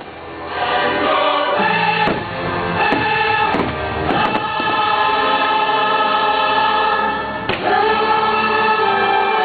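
Choral and orchestral fireworks-show soundtrack played loud over park loudspeakers, with the bangs of fireworks bursting overhead several times across it.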